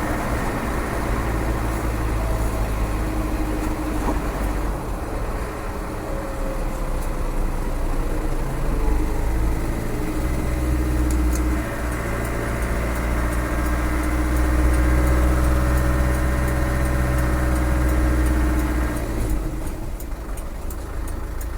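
Land Rover 300Tdi 2.5-litre four-cylinder turbodiesel engine running under way, heard from inside the cab with road noise. Its note climbs and grows louder through the second half, then drops away near the end as it eases off.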